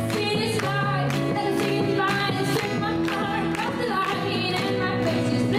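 Live pop band: a female voice singing a melody over strummed acoustic guitar, piano and drums, with a steady beat.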